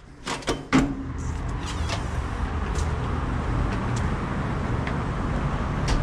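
A metal push-bar exit door clicking and then clunking as its latch releases and the door opens. After that a steady outdoor rush of noise takes over, louder in the lows, with a few light ticks.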